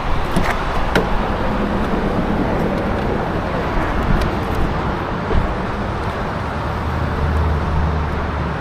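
Steady road traffic noise, with a few short sharp clicks and a low steady hum coming in near the end.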